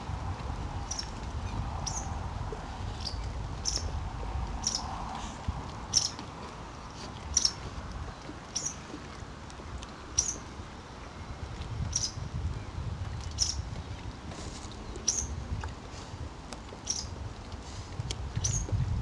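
A small bird chirping over and over: short, high chirps about once a second, over a low wind rumble.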